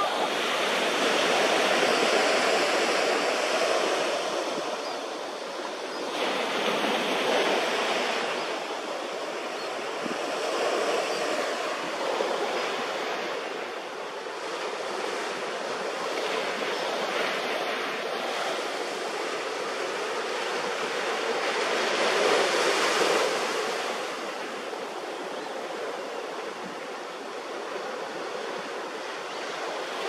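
Ocean surf washing onto a beach, a steady rushing that swells and eases every few seconds.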